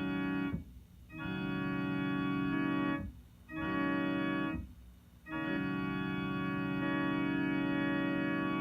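Electronic keyboard with an organ voice playing a held chord that imitates a Nathan M5 five-chime locomotive horn. It is sounded in the grade-crossing pattern: the tail of a first blast, then a long blast, a short one and a long final blast.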